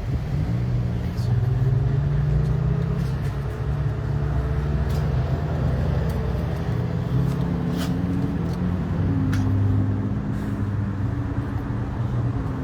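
Car engine running with a steady low hum, heard from inside the car, its pitch shifting a little now and then.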